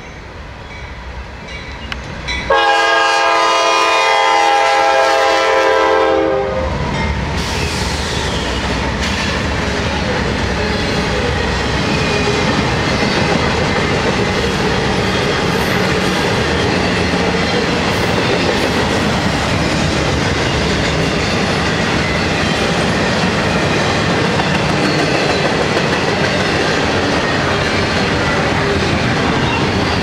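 Norfolk Southern freight train led by GE C44-9W (Dash 9) diesel locomotives, approaching at speed. It sounds one long chord of its air horn for about four seconds, starting about two and a half seconds in. A long intermodal train of double-stack container cars then rolls past with a steady rumble and clatter of wheels on the rails.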